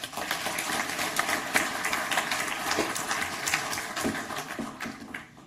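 Audience applauding, dense rapid clapping that dies away near the end.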